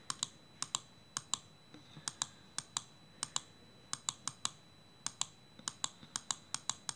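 A run of sharp, irregular clicks, about four a second and often in quick pairs.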